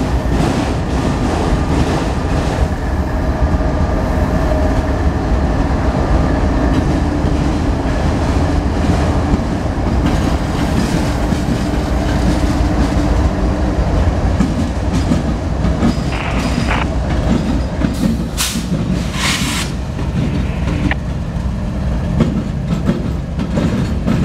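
CSX freight train rolling past: autorack cars' wheels clicking over the rail joints and diesel locomotives rumbling steadily by. A couple of brief hisses come about three quarters of the way through.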